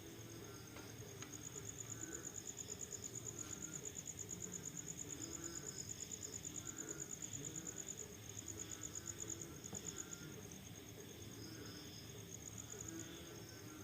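A night chorus of crickets trilling in a fast, high pulsing that breaks off briefly about two-thirds of the way through. Frogs call underneath in short, lower, repeated notes.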